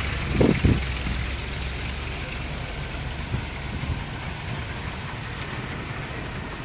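A vintage saloon car drives slowly past close by on cobbles, its engine running with a low rumble, and a couple of low thumps come about half a second in. An old motorcycle's engine follows behind it.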